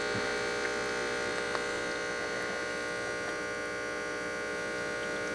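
Electric diaphragm air pump of a stock-tank aerator running with a steady, even buzz.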